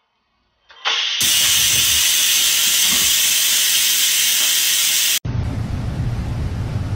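A loud steady hiss starts about a second in and cuts off suddenly about five seconds in. After it comes a lower, rougher noise with a hum.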